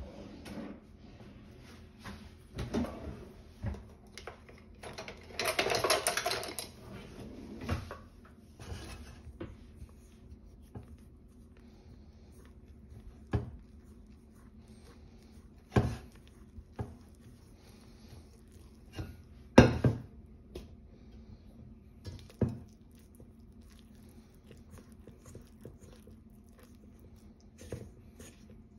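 Metal spoon stirring and scraping flour and melted butter in a stainless steel mixing bowl. There is a stretch of continuous scraping about five to seven seconds in, then several separate sharp clinks of the spoon against the bowl, the loudest about two-thirds of the way through.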